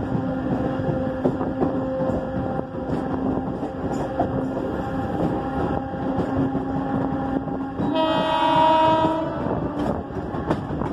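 Mumbai suburban electric local train running, with a steady hum and wheels clicking over the rails. About eight seconds in, a train horn sounds for about a second and a half.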